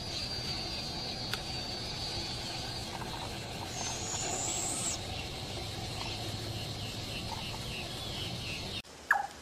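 Birds calling over outdoor background noise: a thin, steady high whistle, a rising high note about four seconds in, then a quick series of short falling chirps. Just before the end the sound cuts to a different recording, where a single sharp, falling call is the loudest sound.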